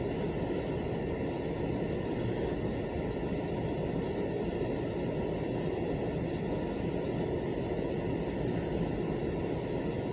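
Steady noise of a freight train running past, even and unchanging throughout.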